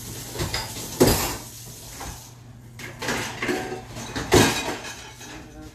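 Dishwasher racks being pulled out and dishes and pots clattering as they are rummaged through. The loudest knocks come about a second in and again just after four seconds, with smaller clinks between.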